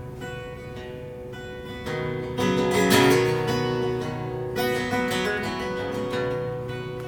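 Acoustic guitar strumming chords in an instrumental break of a song, swelling louder about two and a half seconds in and then easing back.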